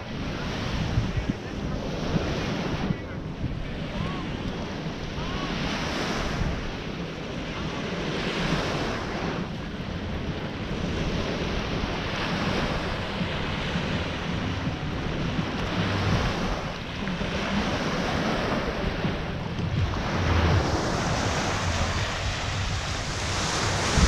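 Small waves washing onto a sandy beach, the surf noise swelling and fading every few seconds, with wind rumbling on the microphone.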